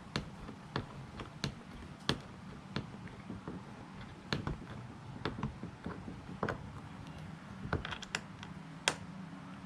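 Light, sharp clicks, about one and a half a second, as a screw on a kayak's rudder assembly is tightened down by hand with a small tool.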